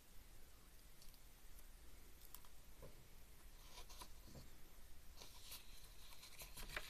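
Near silence with faint handling sounds: scattered small clicks and light rustling as beads on thread are worked by hand, busier in the second half.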